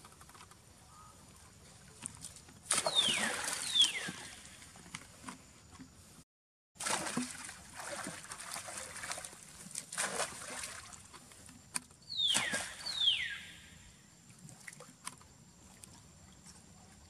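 Macaques swimming in a pool, water splashing and sloshing in several bursts. Twice, a pair of short high whistles sliding downward in pitch sounds over the splashing.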